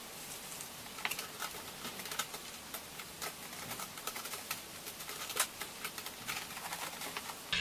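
A small furry pet digging and scratching in a tray of sand: irregular light scratches and ticks of sand grains over a steady hiss.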